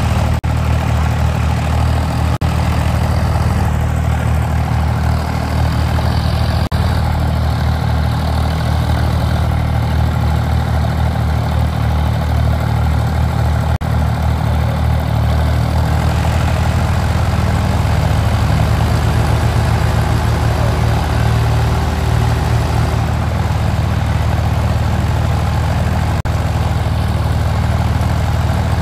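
Tractor diesel engines running hard under load as the tractors pull against each other in a tug-of-war, a loud, steady deep drone.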